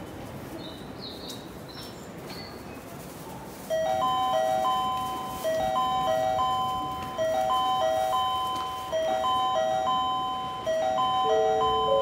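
Train-approach warning chime on a station platform, heralding a train passing through without stopping. About four seconds in, a short electronic melody of a few clear, bell-like notes starts and loops roughly every second and a half to two seconds over a low platform background hum.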